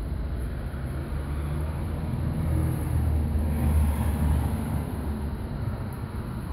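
A motor vehicle driving past on the street: a low engine and tyre rumble that swells to its loudest about three to four seconds in and then fades, over steady street background noise.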